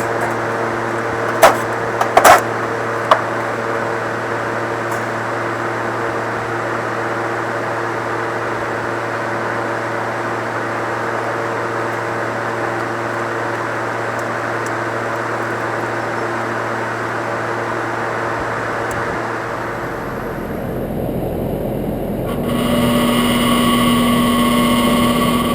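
Air conditioner compressor humming steadily without starting: a stalled compressor drawing about 70 amps on its start attempt, with its run capacitor reading below spec. A few sharp clicks sound in the first few seconds, the hum stops about 20 seconds in, and a different steady, tone-laden sound comes in near the end.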